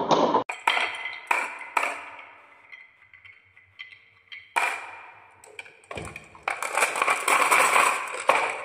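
Glass marbles dropping off a wooden track into a plastic toy dump truck's bed and clacking against the marbles already there. There are a few sharp, ringing clinks early, then a loud clack about four and a half seconds in, then a dense rattle of marbles in the truck bed near the end.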